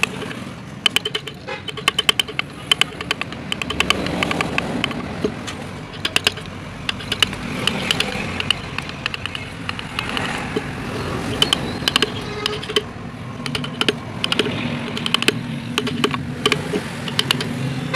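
Hand chisels and gouges cutting into a carved wooden relief: irregular sharp clicks and taps of steel tools on wood, some in quick runs. A steady low rumble runs behind them.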